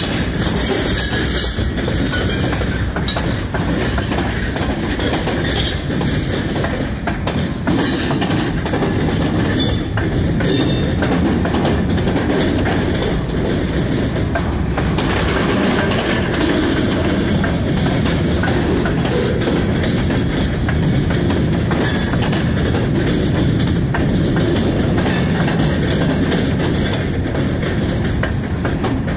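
Freight train's tank cars and boxcars rolling past: a steady rumble of steel wheels on rail, with scattered clicks over the rail joints.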